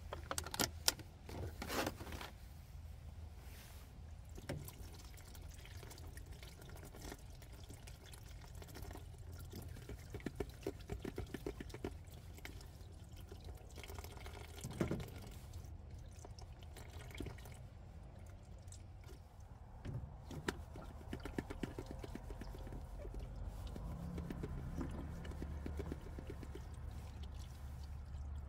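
Water running from the spigot of a plastic water jug into a collapsible sink as grapes are rinsed by hand. A plastic clamshell container clicks sharply while being handled in the first couple of seconds.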